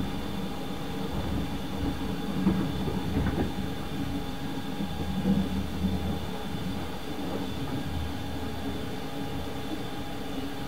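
Running noise inside a 24-series sleeper coach at speed: a steady low rumble of wheels on rail with a constant hum, and slightly louder jolts about two and a half and five seconds in.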